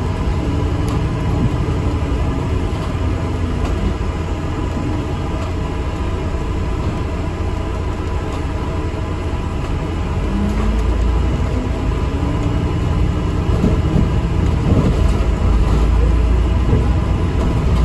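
Inside an ADL Enviro 400 MMC double-decker bus on the move: a steady low engine and road rumble that grows louder from about ten seconds in.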